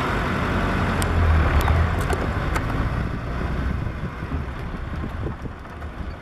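Safari jeep's engine running with a low rumble, loudest about a second in and easing off over the last few seconds, with a few sharp clicks in the first three seconds.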